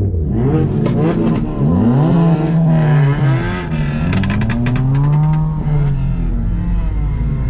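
Car engines revving, their pitch rising and falling several times with overlapping notes. There is a quick run of crackles about four seconds in.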